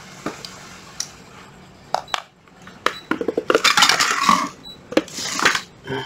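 Hard tools handled and set down on a surface: separate clicks and knocks, a quick run of small clicks about three seconds in, then two stretches of clattering and scraping.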